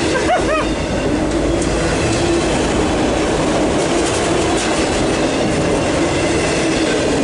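Empty autorack freight cars rolling past close by: a steady, loud rumble and rattle of steel wheels on the rails, with a steady whine running under it.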